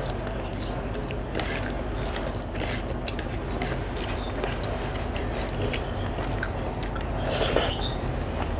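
Fingers mixing boiled rice with sukto on a plate, making soft wet squishes and small clicks, with chewing and lip smacks near the end, over a steady low hum.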